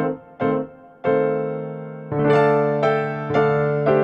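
Background music: a piano-like keyboard playing a gentle run of notes and chords, each struck sharply and then fading away.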